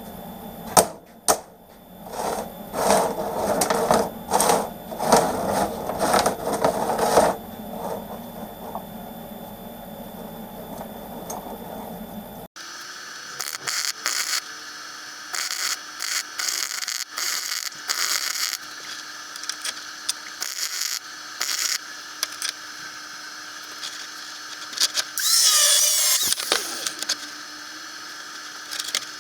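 Workshop sounds of metalwork: a run of knocks and clicks, then after a cut, short bursts of a small power tool with one longer run that rises in pitch near the end.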